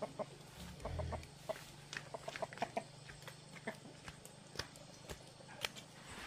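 Chickens clucking faintly, short scattered calls among light clicks and taps.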